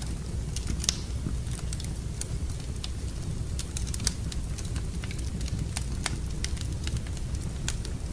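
Wood fire in a fireplace crackling: irregular sharp pops and snaps over a low, steady rumble, with the loudest pops about a second in and at about four seconds.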